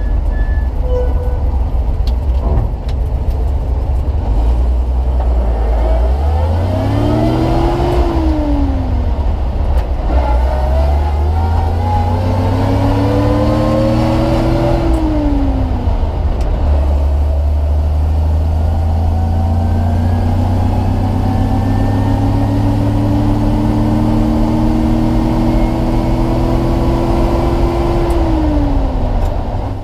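1946 Chevrolet 2-ton truck's inline-six engine heard from inside the cab, working under load as it pulls the loaded truck up through the gears. The engine pitch climbs and drops back three times: two short pulls, then a long slow climb in a higher gear.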